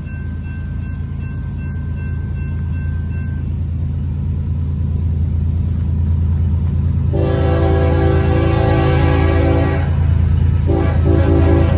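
A train passing close by, its low engine rumble growing louder, then a long blast of a multi-note train horn about seven seconds in and a short toot near the end. A high repeated ringing fades out about three seconds in.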